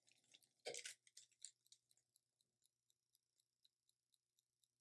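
Near silence, with a few faint crinkles of the DTF transfer film under the hands as it is smoothed onto the shirt during the first second and a half.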